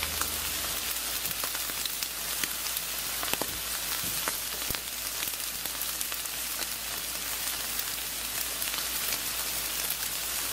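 T-bone steak sizzling on a grill over open flame: a steady hiss with scattered crackles and pops.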